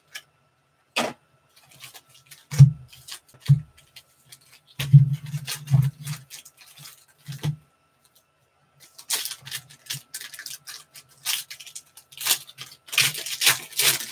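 Hands handling trading cards and card packs. Several dull taps and thuds come as the packs are set down and stacked on the table. In the last few seconds, foil pack wrappers crinkle and tear.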